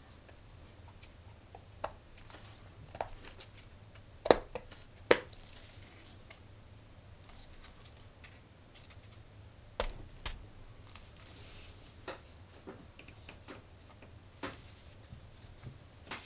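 Hands handling a PVC pipe speaker enclosure and pressing a wooden end cap into it: scattered knocks and clicks of plastic and wood with bits of soft rubbing, the sharpest two about four and five seconds in, over a faint low hum.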